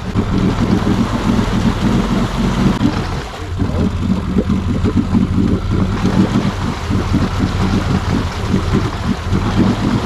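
Can-Am ATV engine running under load with its tyres spinning and churning through deep mud and water, the machine bogged in a mud hole. The engine sound dips briefly about three seconds in and then picks up again.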